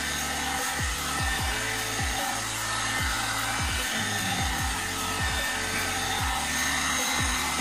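Hot air brush (one-step hair dryer brush) running steadily, a continuous blowing hiss, with background music and its deep bass drum hits underneath.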